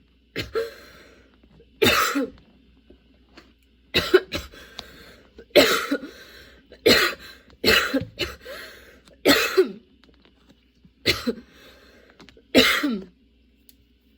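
A woman coughing over and over in a long, nonstop coughing fit: about ten hard coughs, roughly one every second and a half, with breathy sounds between them.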